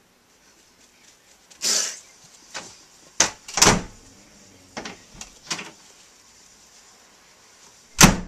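A string of irregular thumps and knocks on a closed wooden door, struck from the other side by a child in a tantrum. A sharp bang about eight seconds in is the loudest.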